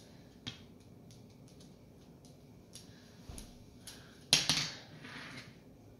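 Broom and mop handles being laid down on a hardwood floor: a light knock about half a second in, a few soft taps, and a louder clatter about four seconds in that trails off over a second.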